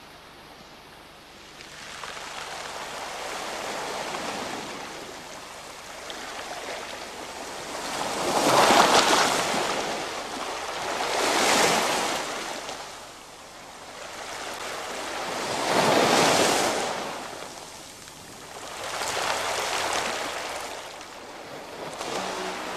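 Small waves washing in on a pebble shore. The noise of the water swells and fades about five times, a few seconds apart.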